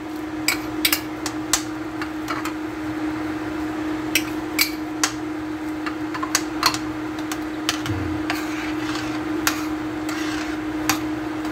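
Metal spoon stirring in a stainless steel pot of boiling soup, knocking and clinking against the pot's sides in a dozen or so irregular sharp clinks, over a steady low hum.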